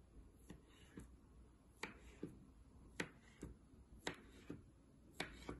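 A knife blade tapping down on a marble countertop as it cuts through a log of cookie dough: faint sharp clicks, about ten of them, coming in pairs roughly a second apart.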